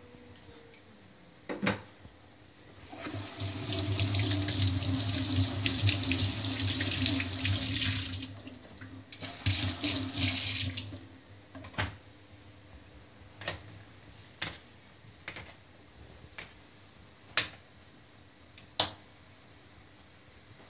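Water running from a kitchen tap over a knife and into a metal bowl for about five seconds, stopping briefly, then running again for about two seconds. Before and after the water come scattered light knocks and clicks.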